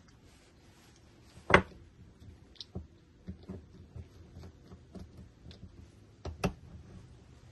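Light clicks and taps of a motorbike GPS handlebar mount's ball-and-socket arm and clamp being handled and fitted together by hand. There is one sharp click about a second and a half in and a quick double click near the end.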